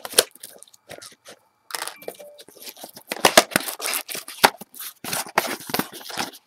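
A baseball-card blaster box's packaging being torn open by hand: scattered crackles at first, then from about two seconds in a dense run of sharp rips and crinkling.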